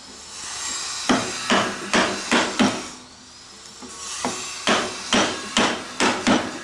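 Firm hits on a wood chisel chopping a mortise. There are two runs of about five sharp blows, two or three a second, with a pause of over a second between the runs.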